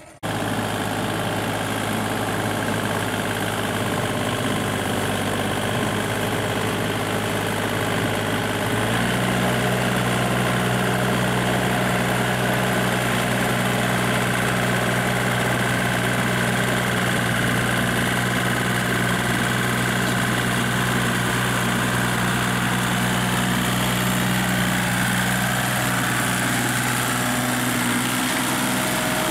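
Kubota compact tractor's diesel engine running steadily while pulling a rotary tiller through a flooded rice paddy. The engine speed steps up about nine seconds in, then holds steady.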